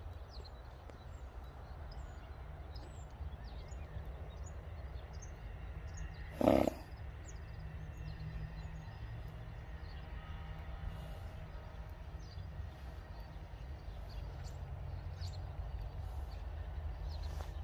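Steady low rumble with faint bird chirps scattered throughout. About six and a half seconds in there is one short, loud animal call.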